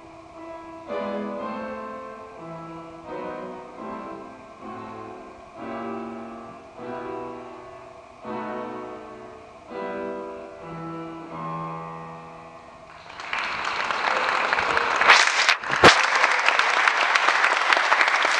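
Upright piano played: a slow piece of chords and single notes, each phrase struck firmly and left to ring out. About two-thirds of the way in the piece ends and audience applause starts, with two sharp knocks in it.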